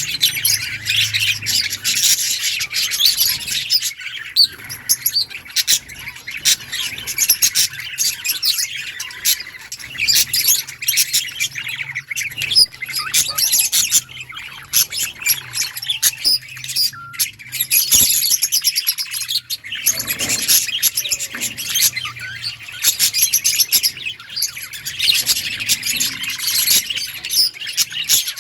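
A flock of budgerigars chirping and chattering all at once, a dense, continuous warbling of many overlapping calls.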